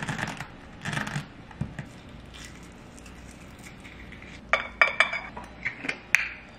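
Crackling of a hard-boiled egg's shell being peeled by hand, twice in the first second or so. Near the end comes a quick run of sharp clicks and taps of kitchen utensils.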